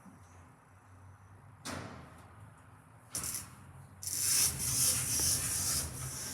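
Passenger lift with its doors shutting: a low steady hum, a knock just under two seconds in, then a loud rushing hiss for the last couple of seconds.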